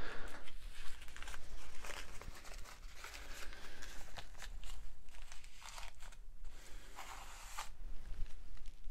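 Rag rubbing gel stain into a scrap maple board: an irregular dry scuffing and rustling of cloth and nitrile glove on wood, with short breaks near the end.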